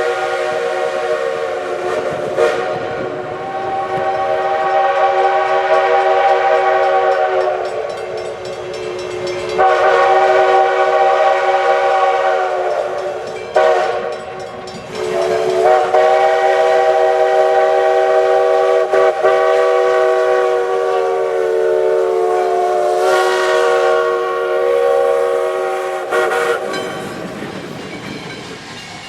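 ALCO five-chime steam whistle on a steam locomotive sounding long blasts. Several notes sound together as one chord, with short breaks between the blasts.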